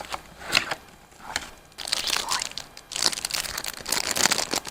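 Plastic packaging crinkling and crackling as bundled projector cables are handled, with a brief lull about a second in before the crinkling picks up again.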